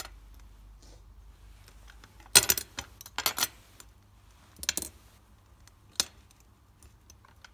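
Small metal boiler electrode assemblies and multimeter probe tips clinking and clattering as they are picked up and handled, in a few short bursts of clicks with a single click near the end.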